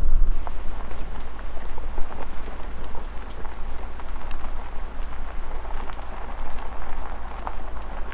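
Vehicle tyres rolling over a gravel track, a dense crackle of stones popping and crunching over a steady low rumble of the engine and road.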